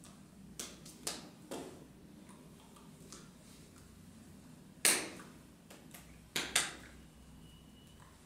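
Scattered short taps and claps of a signer's hands meeting each other and his shirt, about six in all, the loudest one about five seconds in and a quick pair a second and a half later, over a low steady room hum.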